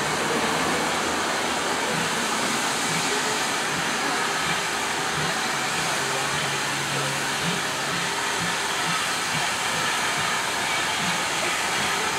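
Steam tank locomotive letting off steam in a steady, unbroken hiss.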